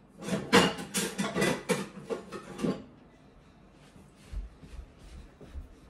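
Dishes clattering as a plate is fetched: a quick run of knocks and clinks lasting about two and a half seconds, then a few faint knocks.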